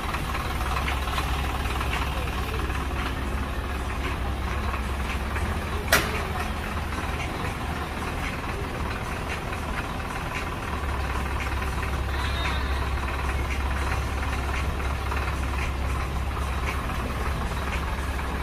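Vehicle engine idling steadily, a low even rumble, with one sharp knock about six seconds in.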